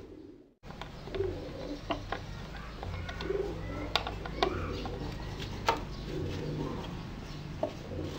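A bird cooing again and again in the background, with scattered sharp clicks and knocks as a hand screwdriver drives screws into a pine board.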